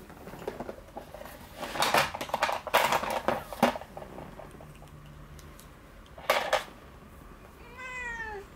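A domestic cat gives one drawn-out meow near the end that falls in pitch, a complaint at being held for claw clipping. Before it come several loud bursts of rustling, scuffling noise.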